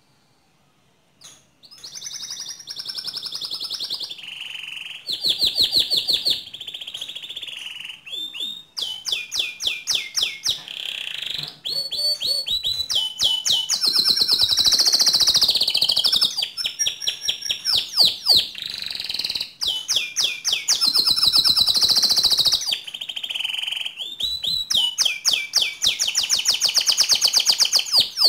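Domestic canary singing a long, continuous song of fast trills and rolls, with rapidly repeated notes, starting after a brief silence.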